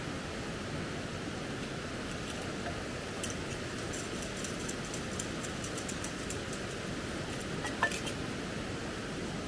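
Portable gas canister stove burning steadily under a steel pot of water, a steady rushing hiss. A run of light ticks comes through the middle, and one sharper click near the end.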